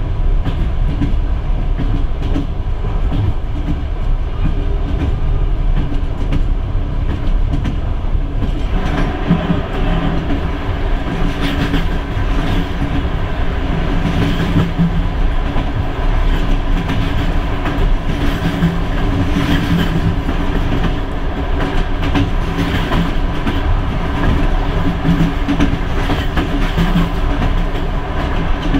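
A passenger train running on the Trans-Siberian Railway, heard from inside the carriage as a steady rumble with the clickety-clack of wheels over rail joints. About eight seconds in, a freight train passing close on the next track adds a louder rushing and a busier clatter that carries on to the end.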